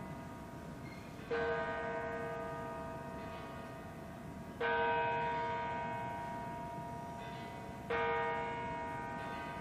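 A single church bell tolling slowly: struck three times about three seconds apart, each stroke ringing on and fading until the next.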